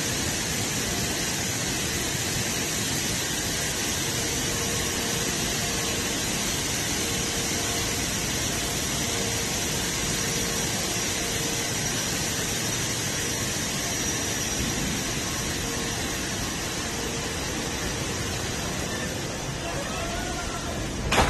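Steady industrial hiss and hum of a metal color coating line running in its factory hall, with a faint steady tone underneath. A single sharp knock comes right at the end.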